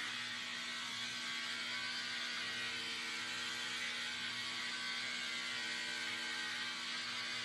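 Electric hair clippers buzzing steadily as they shave through long hair.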